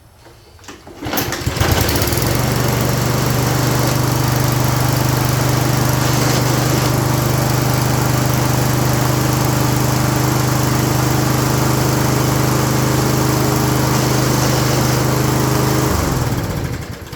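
Toro 22-inch Recycler push mower engine started, catching about a second in, running steadily for about 14 seconds, then shut off, its pitch falling as it winds down. The self-propel drive is engaged, and there is a grinding from it that is typical of worn metal drive gears inside the plastic rear wheels, as the mechanic suspects.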